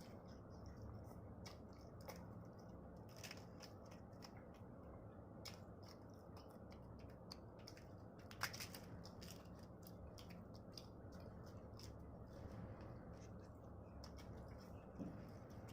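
Faint eating sounds: many scattered wet mouth clicks and smacks of chewing, the sharpest about halfway through, over a steady low hum.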